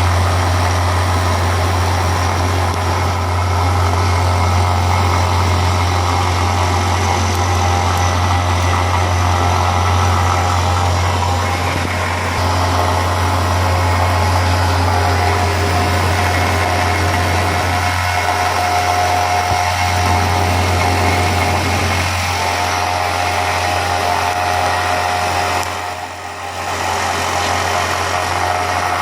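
Retrofitted Pratt & Whitney Tapemate C CNC mill running steadily while machining an aluminium part, with a strong low hum and several steady tones that change pitch partway through. It dips briefly in level near the end.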